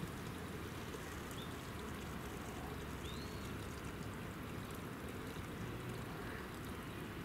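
Steady low outdoor background noise with a few faint, short high chirps, one near the start and one about three seconds in.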